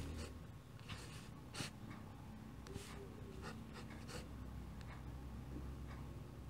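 Pen nib scratching across paper as a signature is written, in short irregular strokes, faint, over a steady low hum.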